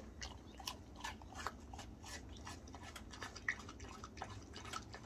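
Collared peccary (javelina) chewing: faint, irregular soft clicks and crunches, several a second.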